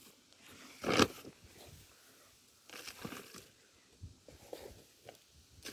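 Crinkling, rustling handling noise: one sharp crackle about a second in, then a few fainter rustles.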